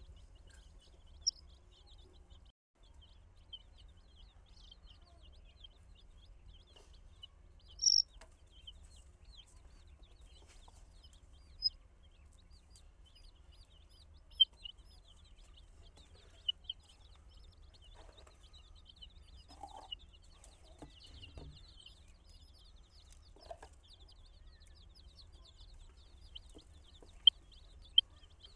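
A flock of baby chicks peeping: many small, high chirps overlapping throughout, with a few louder single peeps now and then.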